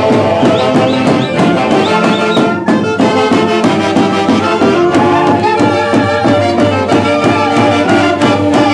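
Live Andean folk band of saxophones and other wind instruments playing a dance tune in unison over a steady hand-drum beat.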